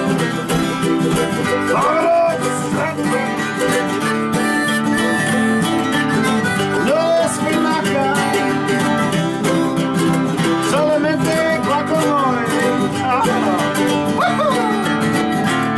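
Acoustic string-band instrumental: acoustic guitar strumming and mandolin picking, with a harmonica playing the melody in notes that slide up and down in pitch.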